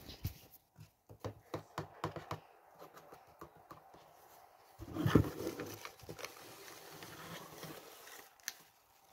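Hands handling a cardboard box: a quick run of light taps and clicks on the cardboard, then a louder knock with a rustle of the white wrapping inside about five seconds in.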